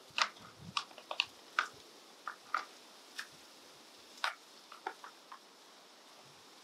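Irregular small clicks and crackles of gloved hands handling a small plastic plant pot and compost while knocking out and setting in a strawberry plant, dying away about five seconds in.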